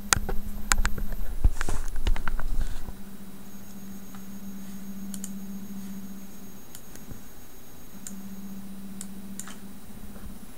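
Handling knocks and clicks as a smartphone is held and moved by hand, loudest over the first three seconds. After that a low steady buzz comes and goes, with a few light clicks.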